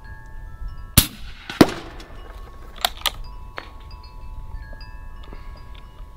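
An Umarex Gauntlet .30 PCP air rifle fires once with a sharp crack about a second in. About half a second later comes the sound of the slug striking a ballistic gel block 100 yards downrange, an unusual impact noise. A few lighter clicks follow, with wind chimes ringing throughout.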